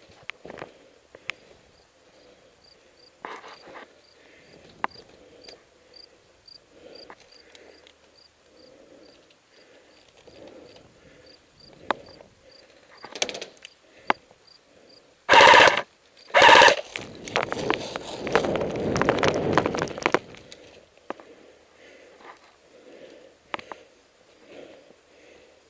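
Airsoft electric gun firing two short full-auto bursts about a second apart, the loudest sound, followed by about three seconds of quieter, denser rattling; otherwise soft rustling of movement and scattered clicks.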